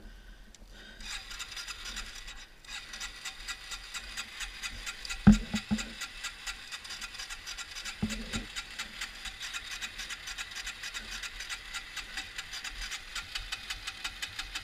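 Yamaha TW200's single-cylinder engine running at idle in neutral, heard as a fast, even ticking that starts about a second in and drops out briefly around two and a half seconds. A thump about five seconds in and a softer knock near eight seconds.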